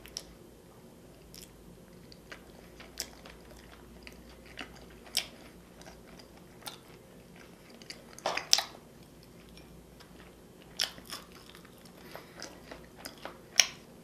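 Close-miked eating: chewing with scattered wet mouth clicks and smacks, a cluster of louder ones about eight seconds in and another loud click near the end.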